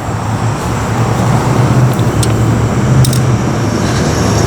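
Street traffic: a steady low engine hum from passing vehicles, swelling twice near the middle, with a few faint ticks.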